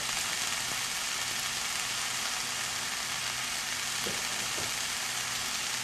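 Stir-fry of vegetables, mushrooms and vegan meat pieces sizzling steadily in a nonstick frying pan, with a little water added so it steams.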